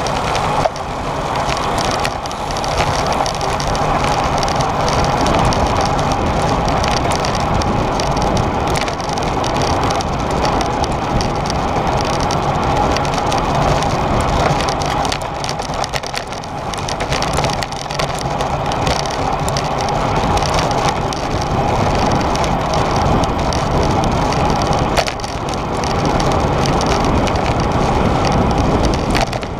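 Steady rush of wind over a bike-mounted camera's microphone, mixed with tyre and road noise from a racing road bike at speed on asphalt, with many small rattling knocks from the frame and mount.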